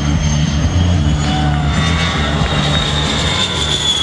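Fairchild Republic A-10 Warthog's twin General Electric TF34 turbofan engines as the jet passes overhead: a high whine over a low rumble, the whine slowly falling in pitch in the last couple of seconds as the jet goes by.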